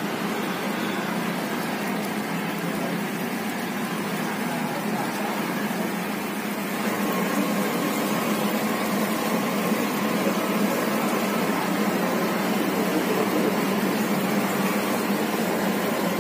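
Jalebi batter sizzling in a kadai of hot oil as it is piped in from a cloth bag: a steady frying hiss that gets slightly louder about six seconds in.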